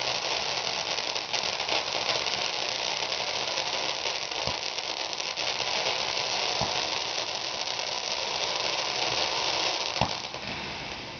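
Fireworks going off: a dense, steady crackle, with a few sharper pops about four and a half, six and a half and ten seconds in, easing off near the end.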